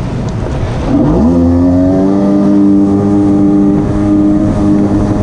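Polaris personal watercraft's engine revs up about a second in and then runs at a steady high pitch, with wind and water rushing underneath.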